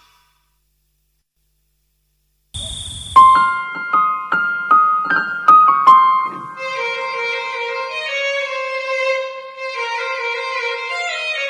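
Silence for about two and a half seconds, then a brief burst of hiss, then background music: a run of about eight piano notes, followed by violins taking up a slow, sustained melody.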